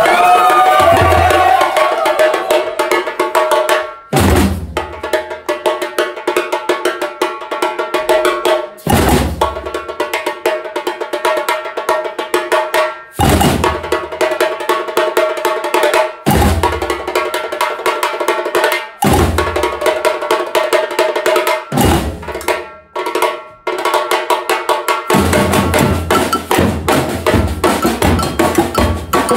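Batucada samba percussion ensemble playing: snare drums keep up a fast, dense stick rhythm, broken every few seconds by a single low drum stroke. About 25 seconds in, low drums join steadily and the groove fills out.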